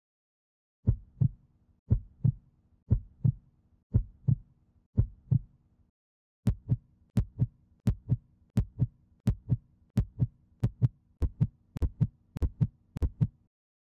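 Heartbeat sound effect: double lub-dub beats about once a second, a short pause about six seconds in, then the beats come back faster and quicken toward the end before stopping suddenly.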